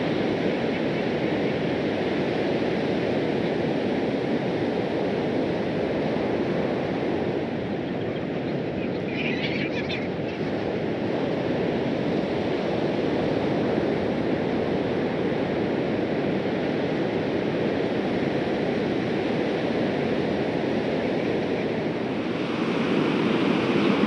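Ocean surf breaking and washing onto the shore, a steady rush of waves, with a brief higher sound about ten seconds in.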